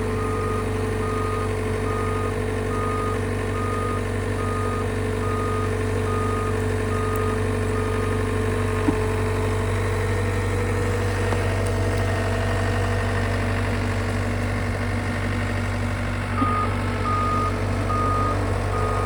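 John Deere 325G compact track loader's diesel engine running steadily under load, its backup alarm beeping about twice a second while it reverses. The beeping stops a little before halfway as the machine drives forward, then starts again about three-quarters of the way through.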